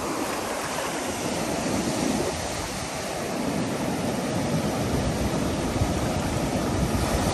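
Ocean surf breaking and washing up a sandy beach, a steady rush of waves that grows a little louder toward the end.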